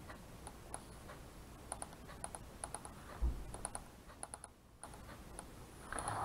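Faint, irregular light clicks and taps of a paintbrush handle dabbing dots of paint onto a hard painted rock, with a soft low bump about three seconds in.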